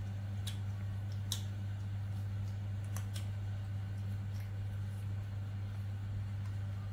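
A steady low hum, like a fan or mains hum, with a few short soft clicks as a baby macaque chews a piece of apple.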